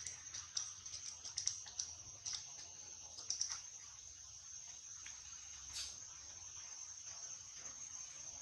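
Steady high-pitched insect drone, with a scatter of faint sharp clicks in the first few seconds and one more later.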